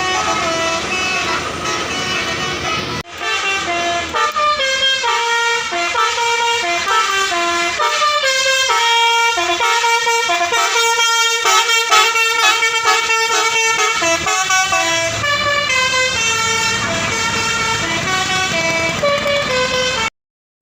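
Telolet basuri musical air horns on tour buses playing tunes, loud held notes stepping from pitch to pitch, over engine noise. The horns break off briefly about three seconds in and stop abruptly just before the end.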